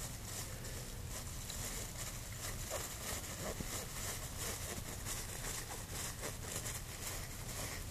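A cat licking the inside of a thin plastic shopping bag, the plastic crinkling softly with each lick in a quick, continuous series.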